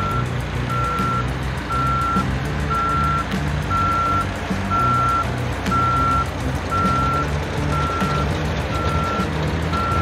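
Vehicle reversing alarm beeping in a steady, even series, a little more than one beep a second, over a low rumble.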